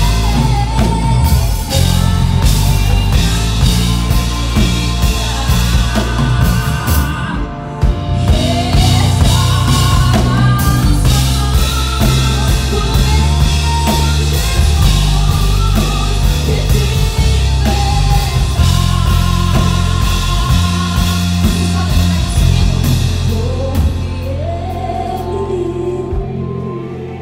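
Live worship band playing a loud rock-style passage with drum kit, bass and electric guitar, with a woman's voice singing over it. Near the end the drums drop out and the music quietens.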